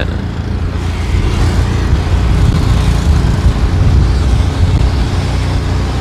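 Motor vehicle running along the road, heard from on board: a steady, loud low engine rumble with road noise.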